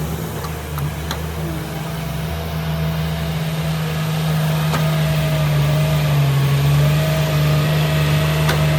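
Heavy earthmoving machine's engine running steadily under work, with a few faint clanks, getting a little louder about halfway through.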